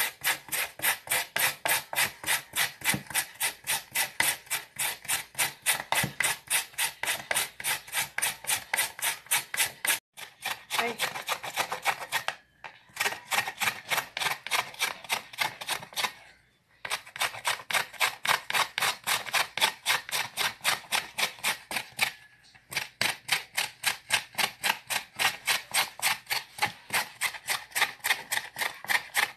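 Raw kalabasa squash being grated on a flat hand grater: quick rasping strokes, about four a second, stopping briefly a few times.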